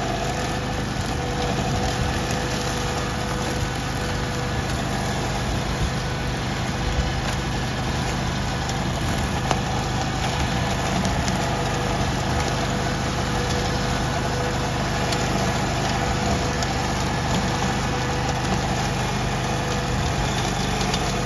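Honda GX690 V-twin engine of a Canycom four-wheel-drive ride-on mower running steadily at an even speed.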